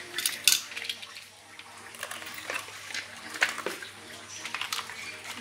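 Hard plastic toy track pieces clacking and clicking as they are handled and fitted together, a scattering of sharp knocks with the loudest about half a second in and again about three and a half seconds in.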